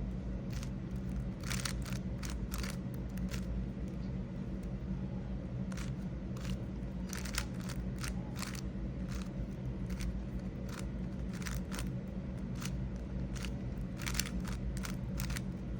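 GAN 562 M plastic 5x5 speedcube being turned by hand: a run of quick, irregular clicks as the layers snap round, over a steady low hum.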